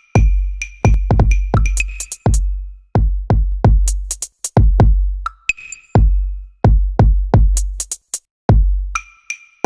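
Electronic background music built on a drum machine: deep bass-drum thumps and sharp percussive hits in a quick, steady beat, with short high synth notes over them.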